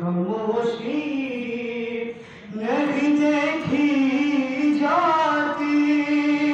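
A man's solo voice chanting a noha, a Shia Urdu lament, in long held notes that glide between pitches. A short breath pause a little past two seconds in, then one long held note.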